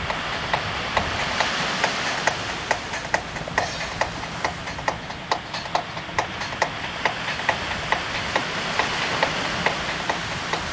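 Sea waves washing steadily on the shore, with a sharp, regular clicking of about three ticks a second over the surf.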